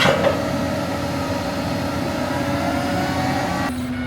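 Heavy machine's engine running steadily, with a sharp knock at the start; the sound changes abruptly near the end.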